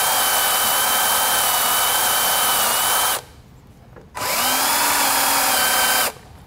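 Cordless rechargeable drill with a sharp bit drilling a shallow locating hole beside a motorcycle's rear axle adjuster. It runs steadily for about three seconds, stops for about a second, then runs again for about two seconds in short, controlled bursts so as not to drill too deep.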